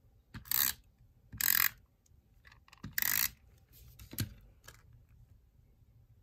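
Three short strokes of a Tombow adhesive tape pen rolled across planner paper, about a second apart, followed by a single sharp click a little past the four-second mark.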